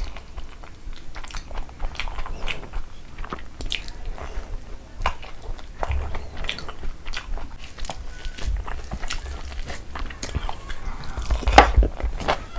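A person chewing and biting a mouthful of food close to the microphone, with many small wet clicks and smacks, and a louder bite near the end.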